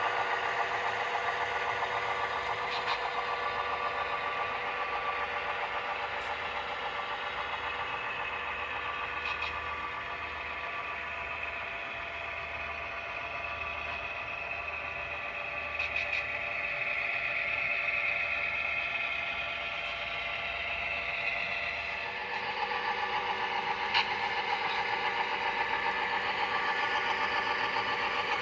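Model Great Northern F-unit diesel locomotives running with a steady diesel engine sound, with a few sharp clicks from the train's wheels on the track every few seconds.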